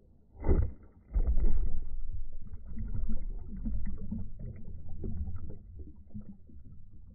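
Muffled churning and splashing of water from a swimmer's backstroke arms and kicks, heard through a phone held underwater. A dull thud comes about half a second in, then a continuous low churning that eases off near the end.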